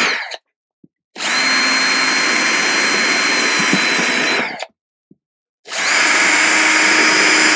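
Electric drill with a step drill bit boring holes through a clear plastic tub, run in short bursts with a steady motor whine. It stops just after the start, runs for about three and a half seconds, pauses for about a second, then runs again.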